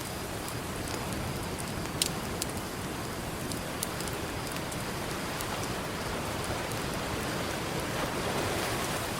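Campfire crackling, with a handful of sharp pops (the loudest about two seconds in), over a steady wash of ocean surf that swells slightly near the end.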